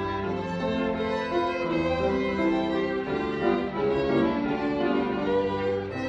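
Two violins and a grand piano playing a classical chamber piece together, the violins bowing sustained notes over the piano.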